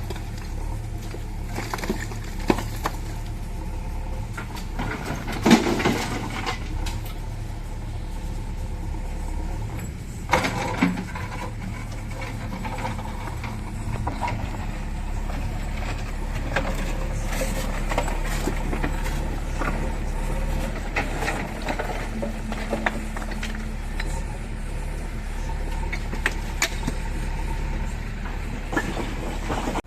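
Diesel engine of a backhoe loader running steadily, with a few sharp clanks and knocks from the digging and loading work, the loudest about five and a half seconds in and about ten and a half seconds in.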